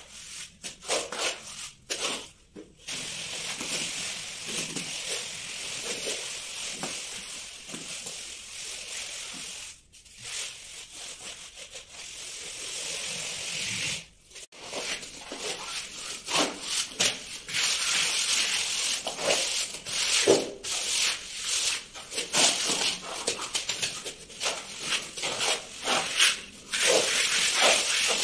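A hand-held tool rubbed and scraped over a fresh cement-plaster wall: a scratchy rasping in repeated strokes, quicker and louder in the second half.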